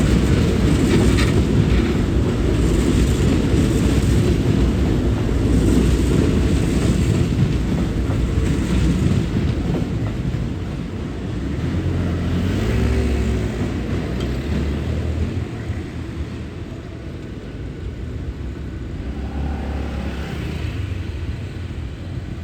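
Hankyu electric train running past, a loud low rumble that dies away over roughly the first half, leaving a quieter steady rumble.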